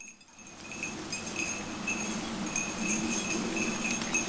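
Small bell jingling in quick, irregular rings, over a low rustle of movement.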